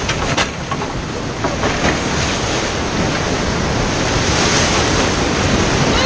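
Fast whitewater rapids rushing and breaking around an inflatable raft, heard close up as a loud, steady rush of water.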